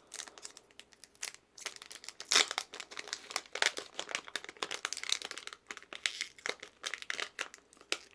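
Foil booster pack wrapper crinkling in the hands as it is torn open: a dense run of irregular crackles, the loudest about two and a half seconds in.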